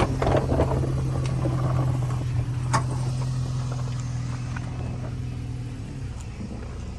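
A machine running with a steady low hum that slowly fades and stops near the end, with one sharp click partway through.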